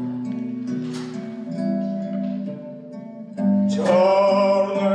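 A kobza (Ukrainian lute) is plucked, playing a melody note by note. Near the end a voice comes in singing a held, wavering note over it.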